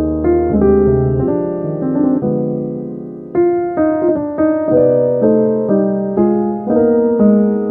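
Instrumental piano music: single notes and chords struck one after another, each fading away, with a softer stretch a little before the middle before the playing picks up again.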